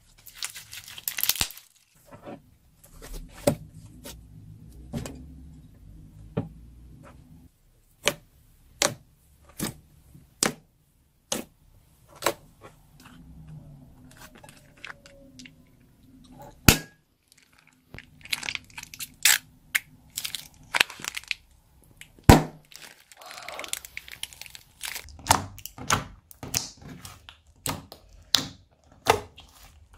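Slime with water beads being squeezed and stretched by hand: a string of sharp pops and clicks with crackling in between.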